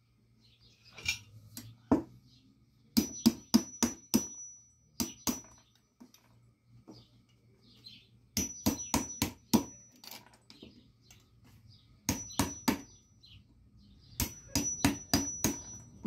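Hammer tapping the back of a steel blade to chop cast round lead fishing sinkers off their casting runner, in several bursts of quick metallic strikes, some leaving a brief high ring.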